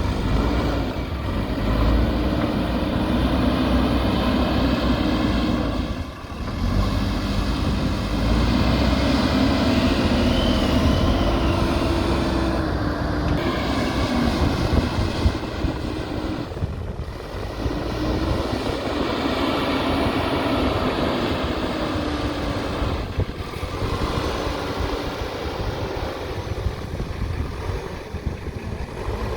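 JCB backhoe loader's diesel engine working, its pitch rising and falling as it revs up and eases off, with brief drops in level a few times.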